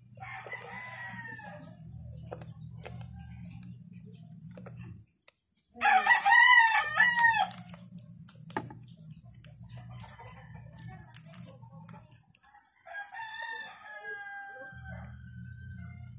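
A rooster crows loudly about six seconds in, with fainter crows from other roosters near the start and again late on. Between them come light clicks from hands pressing down a plastic hive cover, over a low steady hum that cuts out twice.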